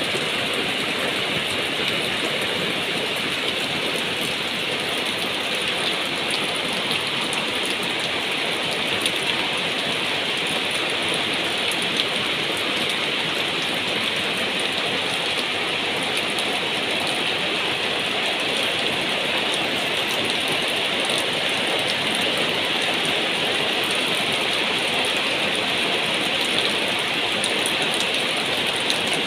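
Heavy rain falling steadily, splashing on a wet roof surface and on plastic plant bags and leaves.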